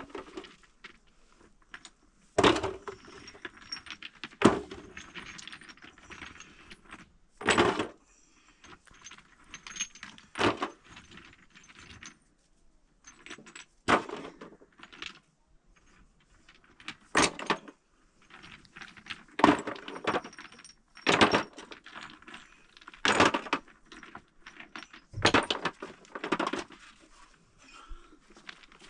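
Stones tossed one at a time into a metal pan, each landing with a sharp clatter, about a dozen over the stretch, with quieter scraping and shifting of rubble between.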